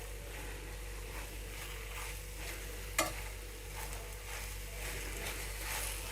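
Spoon stirring boiled vegetables and ground coconut-cumin paste for avial in a pan on the heat, with a light sizzle and repeated soft scraping strokes. One sharp click about halfway through.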